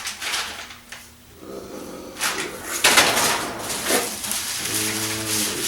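Packing paper rustling and crinkling in irregular bursts as a parcel is unpacked by hand.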